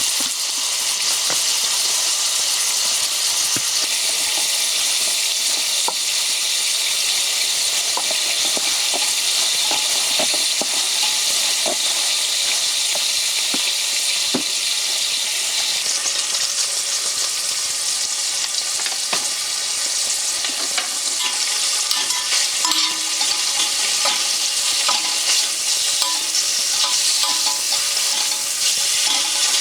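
Food sizzling steadily in a frying pan, with a utensil clicking and scraping against the pan as it is stirred, the taps more frequent in the second half.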